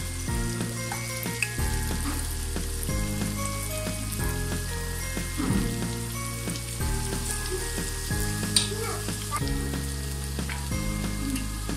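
Vegetable pakora batter of cabbage and potato sizzling as it deep-fries in hot oil in a wok, with more spoonfuls being added one by one. Background music with steady held notes plays underneath.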